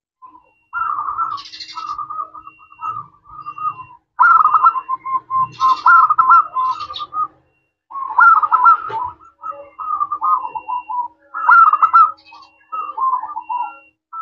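Zebra dove (perkutut) cooing: four phrases of quick, rolling coo notes, each starting loudest and trailing off into a run of shorter notes, about three to four seconds apart.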